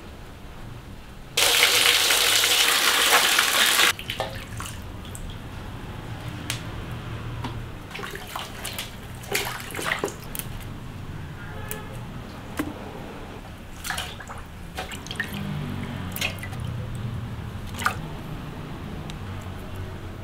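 Water pouring hard for about two and a half seconds near the start, then hands splashing and swishing green vegetables in a steel basin of water, with scattered small splashes and drips.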